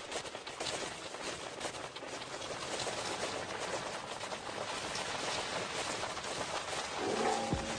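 Audience clapping and cheering, a dense even patter of many hands, with a short tone rising in just before the end.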